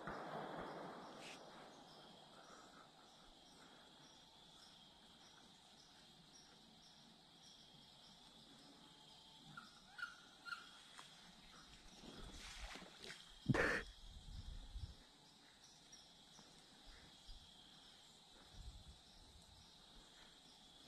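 Quiet woodland ambience with a steady, high-pitched insect chorus. A gunshot's echo rolls away and dies out in the first second or two. A few short chirps come about halfway through, and a brief louder sound about two-thirds of the way in.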